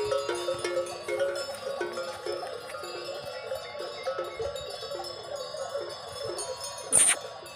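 Metal bells hung on the necks of grazing zebu cattle clanking irregularly as the animals move and feed. A single sharp knock near the end.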